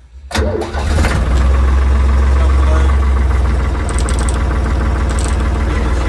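Carraro 6.100-4 tractor's three-cylinder diesel engine starting on the key, catching almost at once about a third of a second in and settling into a steady idle.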